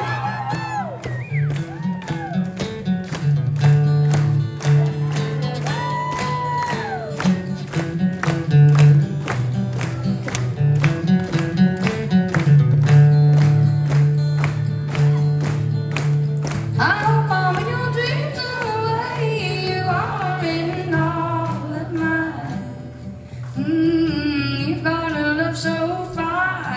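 Acoustic guitar strummed in a slow, steady rhythm as a song's introduction; a woman's singing voice comes in over the guitar about two-thirds of the way through.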